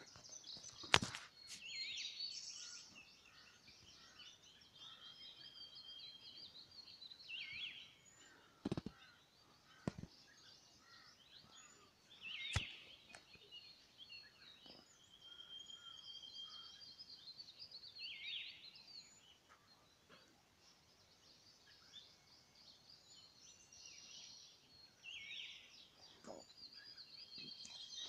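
Several small birds singing and chirping, one repeating a short call every few seconds, with a few sharp clicks scattered through.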